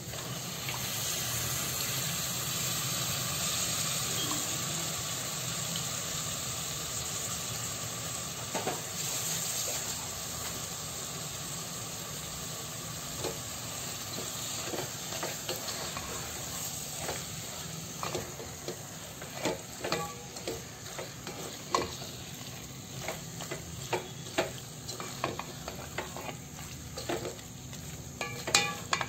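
Washed raw chicken pieces sizzling in hot oil and onion-spice masala in a steel pan, the hiss loudest in the first few seconds and then dying down. A wooden spatula then stirs the chicken, with quick clicks and knocks against the pan that grow more frequent near the end.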